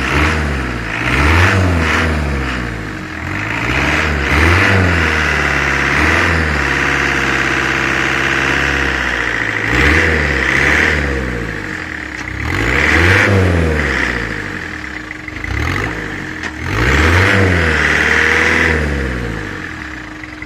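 Fiat 1.9 TD four-cylinder turbodiesel of a homemade 4x4 tractor revved up and let back down again and again as it tries to drive out of deep mud, then settling to idle near the end.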